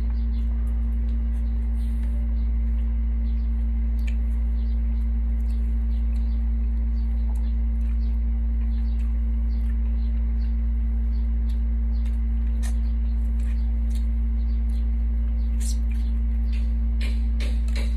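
A steady low hum with a fainter steady tone above it runs under faint clicks and smacks of people eating with their hands. A few louder clicks come near the end.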